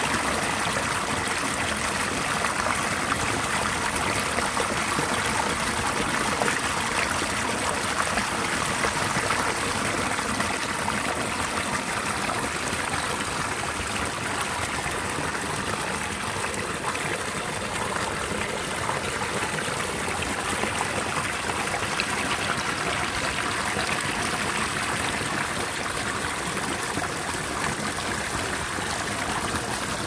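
Small mountain stream running strong over rocks, a steady rush and splash of water pouring through a narrow chute between boulders, its flow swollen by snowmelt and recent heavy rain.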